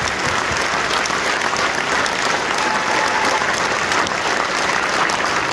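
Large audience applauding steadily, a dense mass of clapping hands.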